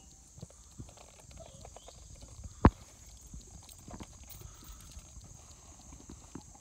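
Hooves of a Haflinger draft horse team clip-clopping on a paved road, irregular knocks of several horses' feet. One sharp, much louder knock a little over two and a half seconds in.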